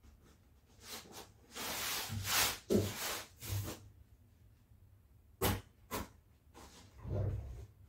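Cloth rustling and swishing as a lace tablecloth is spread and smoothed over a wooden table, then two short knocks about a second apart, and a softer rustle near the end.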